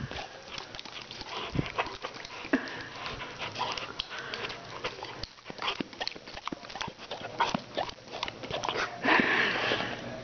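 Rottweiler puppy drinking from a hand spray bottle: short squirts of spray as the dog licks and snaps at the mist, with irregular clicks and taps, such as its claws on a hardwood floor. A longer hissy burst comes near the end.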